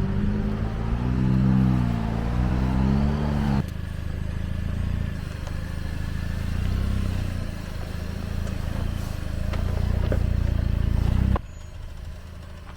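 Off-road vehicle's engine revving up and down as it works over rough trail, then a steady low engine and tyre rumble while crawling; the sound changes abruptly twice, about three and a half seconds in and near the end, where it drops quieter.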